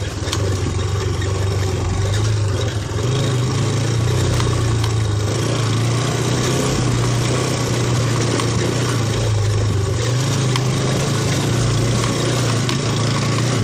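Small motorbike engine running steadily under way on a rough dirt track, its pitch stepping up slightly about three seconds in, over rushing wind and road noise with knocks from bumps.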